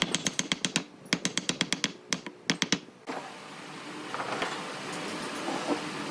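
Workshop tool noise: a rapid run of sharp clicks and strikes, several a second, for about three seconds. A steady mechanical whirr then sets in and grows gradually louder.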